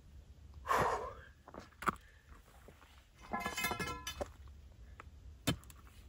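A metal stake being handled against summit rock: light clicks and scrapes, a brief metallic ringing scrape in the middle and a sharp knock near the end. A short puff of breath comes about a second in.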